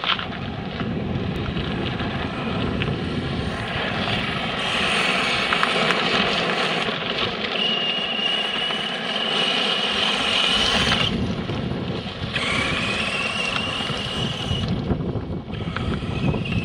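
Remote-controlled model monster truck driving over gravel: its motor gives a high thin whine over a steady crunching rush of the tyres. The whine breaks off briefly about eleven seconds in and returns rising in pitch as the truck speeds up again.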